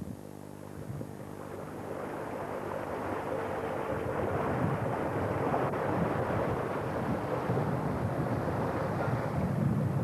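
Fishing boat's engine running steadily under wind buffeting the microphone and sea water rushing past the hull. The wind and water noise grows louder over the first few seconds, covering the engine's hum.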